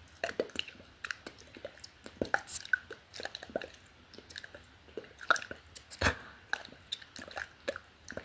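ASMR mouth sounds close to the microphone: irregular wet lip and tongue clicks and smacks, with one sharper click about six seconds in.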